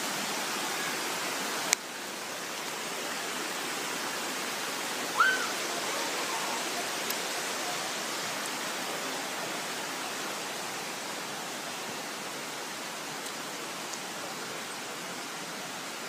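Water of a small rocky stream running and splashing over stones, a steady rush. A sharp click comes just under two seconds in, after which the rush is a little quieter, and a brief high chirp sounds about five seconds in.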